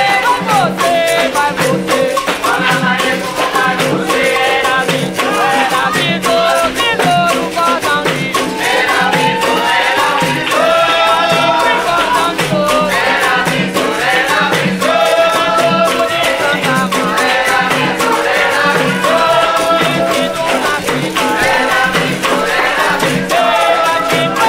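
Capoeira music: a sung melody over a steady rhythm of shaker rattle and percussion.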